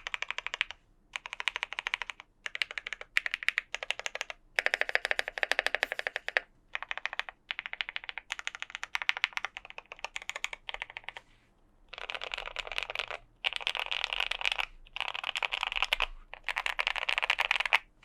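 Typing on a custom Tofu 60 mechanical keyboard with lubed Gateron Ink Black linear switches, a polycarbonate plate and sound-dampening foam. Rapid runs of keystrokes in bursts with short pauses between them, faster and louder near the end.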